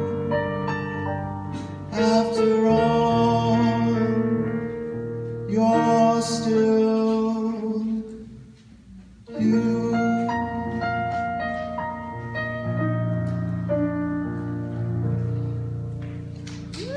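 A man singing the closing held notes of a slow ballad with piano accompaniment; the music dips nearly away for about a second, eight seconds in, then the notes resume.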